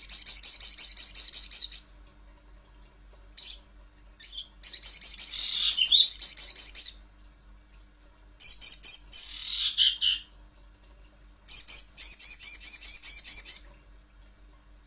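Crimson sunbird (sogon) song: four bouts of rapid, high, ticking trills, each about two seconds long with short pauses between. The third bout ends in a falling sweep.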